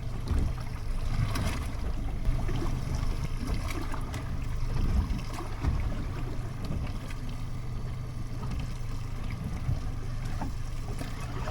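Small boat rocking in rough seas: a steady low rumble of wind and water against the hull, with scattered knocks.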